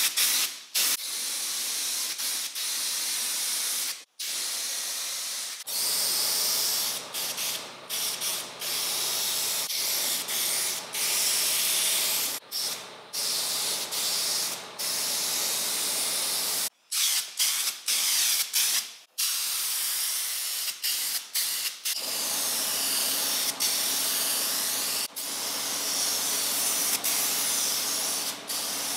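Gravity-feed paint spray gun spraying: a loud, airy hiss in passes of a few seconds each, cutting off sharply between them.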